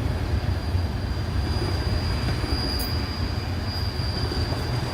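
Freight cars rolling past with a steady low rumble and a thin, high-pitched wheel squeal that grows stronger about halfway through.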